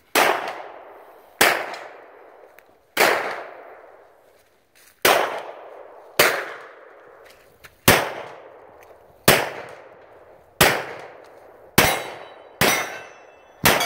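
Handgun fired one shot at a time, eleven shots about one to two seconds apart, each trailing off in an echo.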